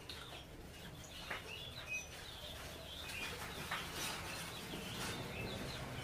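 Small birds chirping and calling, short scattered chirps with a few brief whistled notes.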